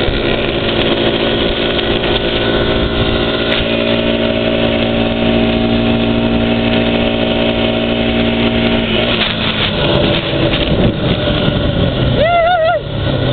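Honda Foreman 500 ATV engine running at a steady cruising speed. About nine seconds in its steady note breaks up and wavers as the ATV slows, and a voice calls out briefly near the end.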